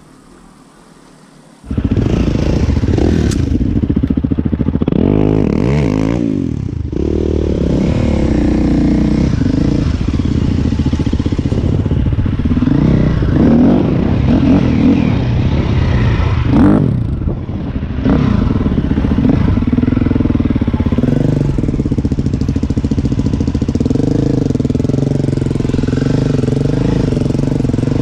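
Dirt bike engine cuts in loud about two seconds in and runs on under way, its pitch rising and falling as it is revved through the ride.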